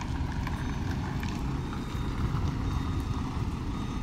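Semi-truck's diesel engine running at low revs, a steady noise, as the tractor-trailer reverses slowly.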